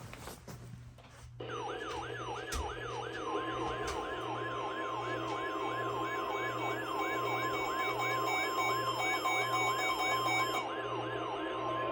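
Weather radio alert for a Special Marine Warning: a siren-like alarm of rapid sweeps about two and a half a second starts about a second and a half in, and about three seconds in the steady 1050 Hz NOAA Weather Radio warning tone joins it, both running on until the warning message begins.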